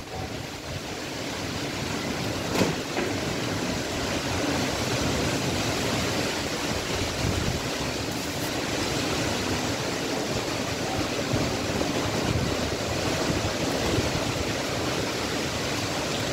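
Strong dust-storm wind blowing steadily through trees, with wind buffeting the microphone.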